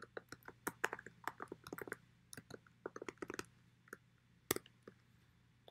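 Computer keyboard keys being typed: a quick run of keystrokes for the first few seconds, then a few slower single taps, the loudest about three-quarters of the way through.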